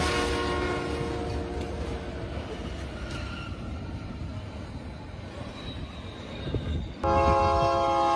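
Freight locomotive horn blaring over the rumble of a passing freight train. The horn fades over the first few seconds, leaving the rolling noise of the train. About seven seconds in there is an abrupt cut to the horn blaring loudly again.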